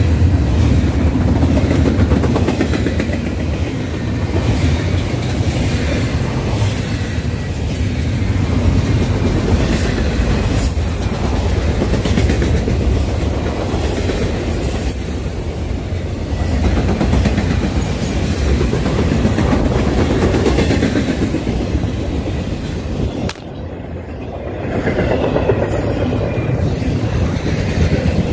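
Intermodal freight train of double-stack container well cars and trailer cars rolling past: a steady rumble of steel wheels on rail with a clickety-clack over the rail joints. About three-quarters of the way through there is a knock, and the sound goes muffled and quieter for a couple of seconds before coming back.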